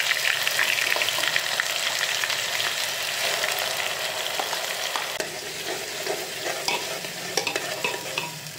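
Onion purée sizzling hard in hot oil with whole spices in an aluminium pressure cooker. The sizzle eases after about five seconds, and near the end a spoon stirs and scrapes against the pot.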